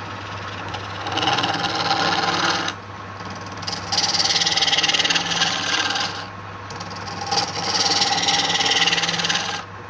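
Wood being worked on a running lathe: a tool or abrasive is pressed against the spinning wood in three passes of rough hissing, each two to three seconds long, over the steady hum of the lathe motor.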